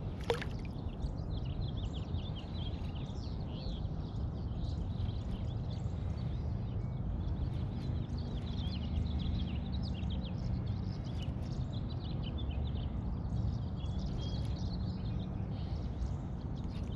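Many small birds chirping and calling, short high notes scattered throughout, over a steady low rumble. A single sharp click sounds about a third of a second in.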